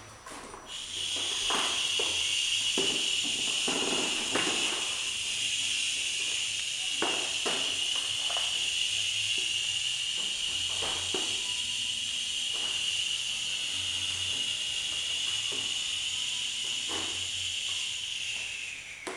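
A long, steady exhaled "shhhh": the qigong healing sound for the liver, held on one breath for about eighteen seconds. It starts about a second in and trails off, dropping slightly in pitch, at the end.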